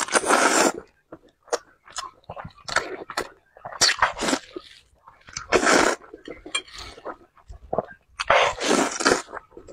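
A person slurping fried instant noodles off chopsticks: four long, loud slurps spaced every two to three seconds, with wet chewing and mouth clicks between them.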